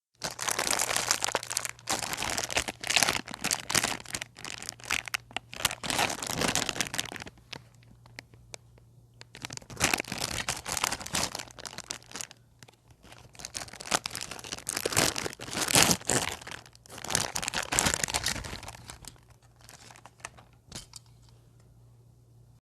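Close-up crinkling and crumpling of a crinkly material handled in several bursts, with short quieter pauses between them.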